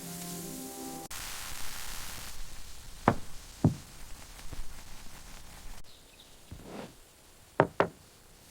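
Background music cuts off about a second in, leaving a soft hiss, followed by a series of dull knocks or thuds: two about half a second apart, a few more spaced out, and a quick pair near the end.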